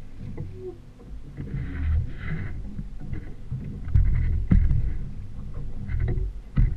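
Outboard motor running as it pushes a small fishing boat, under gusty low rumbling, with water hissing and splashing at the hull, loudest a second or two in, and a couple of sharp knocks in the second half.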